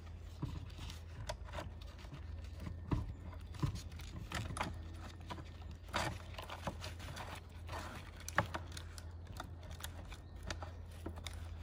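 Steel cutting chain of a TRUMPF TPC165 panel cutter being fed by hand onto its blade and into the machine: a string of small irregular metal clicks and rattles, one sharper click about eight seconds in, over a steady low hum.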